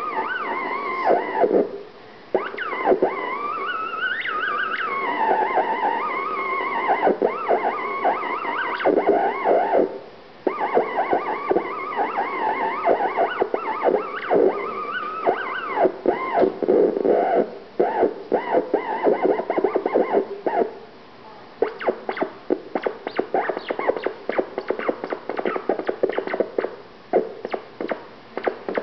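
Theremin-style electronic tones sliding and swooping up and down in pitch, with brief pauses about 2 and 10 seconds in; in the second half the notes turn choppy, cut on and off rapidly.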